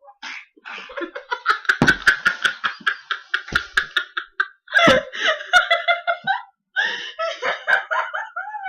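People laughing hard in rapid, breathy pulses that break off and start again.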